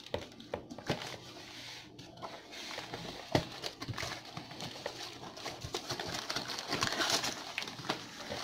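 Cardboard packaging being pulled and handled: irregular scraping and rubbing with scattered short knocks and clicks.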